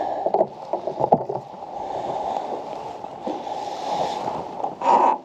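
Fishing gear being handled on a plastic sit-on kayak: several sharp clicks and knocks against the hull in the first second or so, over water lapping at the hull, with a brief louder noise near the end.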